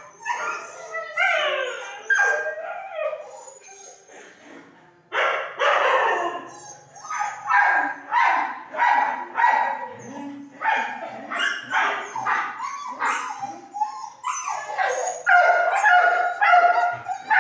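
Caged dogs barking and yelping, with gliding whines in the first few seconds, then a run of quick barks about two a second from about five seconds in, loudest near the end.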